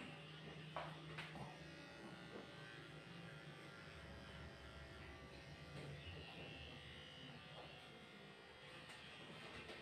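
Electric dog grooming clippers running with a faint steady buzz as they trim a Shih Tzu's face, with a couple of light clicks about a second in.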